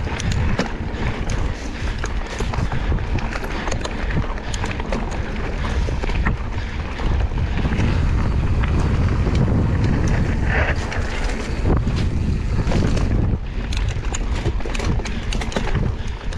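Wind buffeting an action camera's microphone on a mountain bike riding down a trail, with tyre rumble and frequent sharp clicks and rattles from the Scott Spark RC bike jolting over rough ground. It grows louder for several seconds in the middle, then eases near the end.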